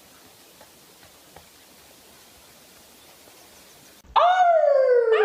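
Faint hiss, then about four seconds in a dog suddenly breaks into a loud, long howl that slides down in pitch.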